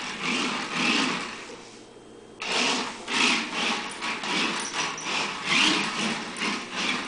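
Small electric motors of a remote-control toy car whirring in uneven bursts as it is driven about, with a brief pause about two seconds in.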